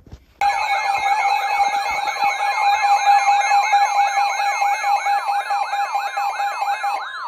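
Emergency Alert System attention signal: a steady alert tone with a rapid siren-like sweep repeating about four times a second over it. It starts about half a second in, and the steady tone drops out near the end while the sweeping goes on.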